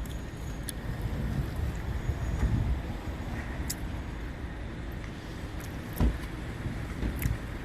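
Steady low rumble of car traffic, with a single sharp thump about six seconds in.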